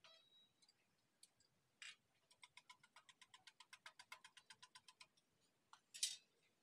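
Egg being beaten with a wire whisk in a steel mug: a faint, fast metallic clicking of about eight strokes a second for roughly three seconds. A single louder clink follows near the end.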